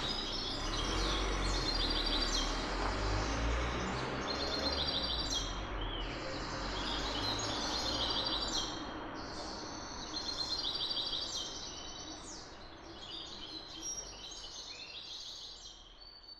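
Low rumble of a diesel bus and street noise fading away gradually, loudest in the first half. Small birds chirp and twitter throughout, above the rumble.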